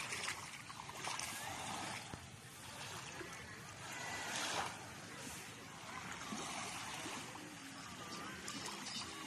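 Small waves lapping at the edge of a sandy beach, an even wash of water sound, with faint voices now and then.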